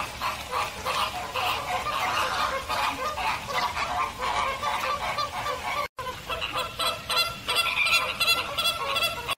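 A flock of flamingos honking, with many calls overlapping. The sound cuts out briefly just before six seconds in, then resumes.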